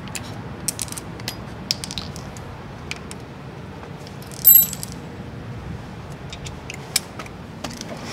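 Metal hand tools and sockets being handled, giving scattered light clicks and clinks, with one brighter ringing metallic clink about four and a half seconds in.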